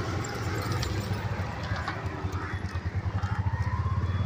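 Vehicle engine idling with a steady low chug that turns into a quick, even pulsing in the second half, with a faint rising whine near the end.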